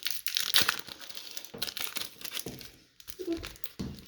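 Foil trading-card pack wrapper crinkling and being torn open by hand, a dense crackly rustle with brief pauses.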